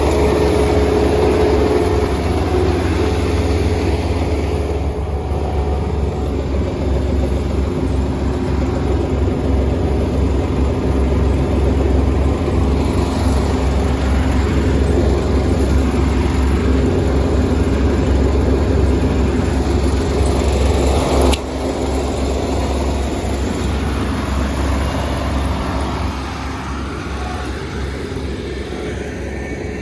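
Kubota ER470 combine harvester's diesel engine running steadily, with a single sharp click about two-thirds of the way through.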